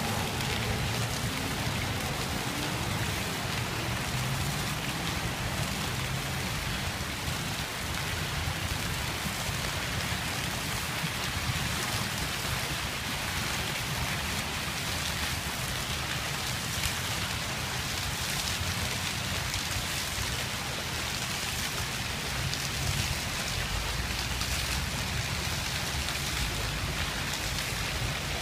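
Dancing water fountain's jets falling and splashing into its pool: a steady splashing hiss with a low rumble underneath.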